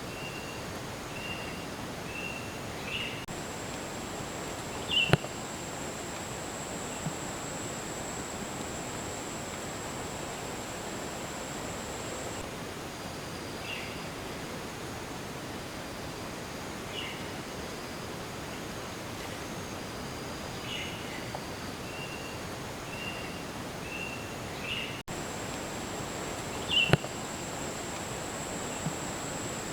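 Forest ambience over an even rushing hiss of a mountain stream. A steady high-pitched tone comes in a few seconds in, stops about halfway and returns near the end, with short repeated chirps and two sharp clicks, one early and one near the end.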